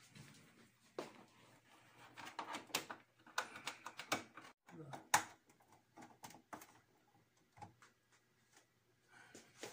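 Short clicks, knocks and rubbing of cables and plugs being handled at the back of a wall-mounted TV as the power cord and a coaxial antenna plug are reconnected, with the loudest click about five seconds in.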